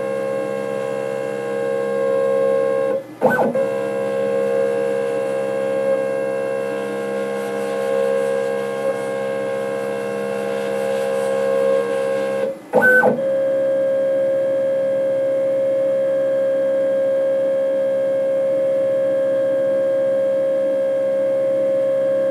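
Stepper motors of a hobby CNC mill on a Xylotex driver whining steadily as Mach3 moves the axis during an automatic self-centering probe routine. The whine breaks off briefly twice and resumes, with a slightly different tone after the second break, as the axis stops and changes direction.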